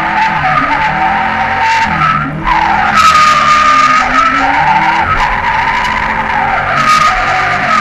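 Ford Mustang GT drifting in circles: its rear tyres squeal without a break, the pitch wavering up and down, and the V8 engine runs underneath at high revs. The squeal lets up briefly about two seconds in, then comes back higher.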